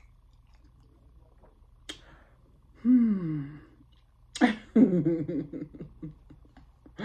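A woman's wordless vocal sounds: a short low sound falling in pitch about three seconds in, then about two seconds of broken, laughing vocal sounds.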